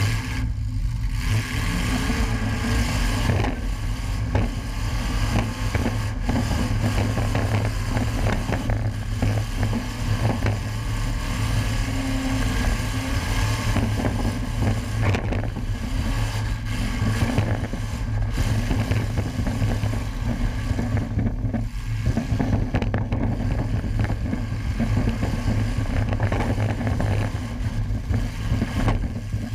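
Demolition derby car's engine running hard, heard from inside the stripped cab, rising and falling as the driver works the throttle, with scattered knocks and bangs of metal from contact with other cars.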